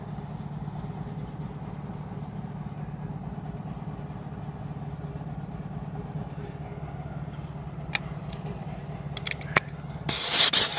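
A steady low motor hum runs throughout, with a few sharp clicks near the end. About ten seconds in, a loud hiss of compressed air starts, blowing sanding dust off an alloy wheel.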